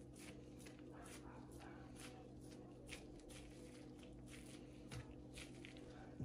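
Near silence: a steady low hum with faint, scattered clicks and a soft knock about five seconds in.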